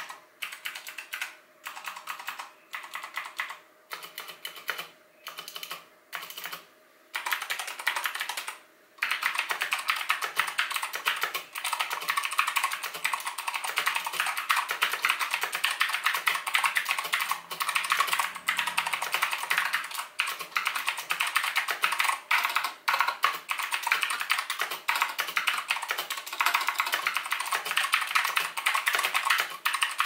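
Typing on a Shipadoo JK200 keyboard with clicky, tactile X Blue switches, knockoffs of Cherry MX Blues; the keystrokes are clicky and loud. For about the first nine seconds the keys come in short bursts with pauses, then fast continuous typing.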